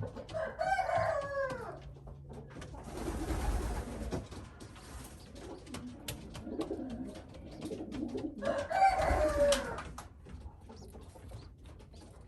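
A bird calling twice, each call a long pitched note of about a second and a half that falls in pitch at its end, the second about eight seconds after the first; a brief rustle and scattered clicks between them.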